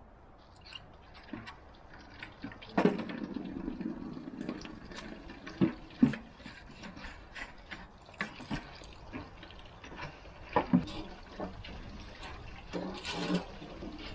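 Water pouring into a container, with scattered knocks and clatter as things are handled.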